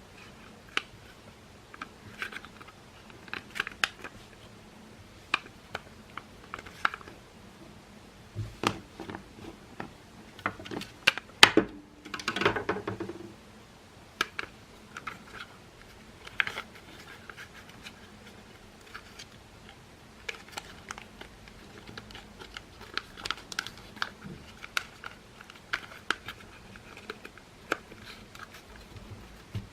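Plastic parts of a Makita CL108FD cordless vacuum cleaner being handled and worked by hand: scattered clicks, taps and light scraping. The loudest clicks come a little before twelve seconds in, followed by a short rasping scrape.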